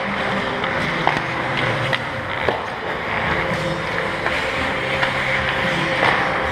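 Ice hockey skates scraping and carving on the rink ice around the goal, with a few sharp clacks of sticks and puck.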